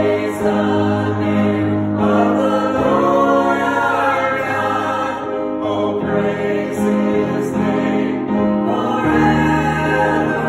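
Church choir of women and men singing a hymn, holding long chords that shift to new ones every few seconds.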